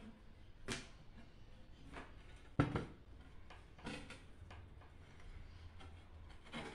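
Ceramic tile pieces of an assembled, taped planter knocking and clunking as it is handled and turned over on a table: about five short knocks, the heaviest about two and a half seconds in.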